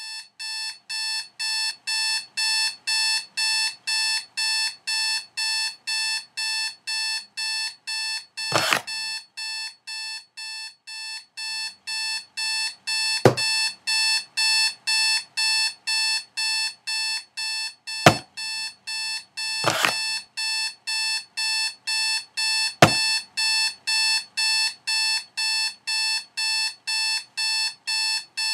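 Digital alarm clock beeping, a high-pitched beep repeated about twice a second without a break. Five sharp knocks sound over it, spread through the middle of the ringing.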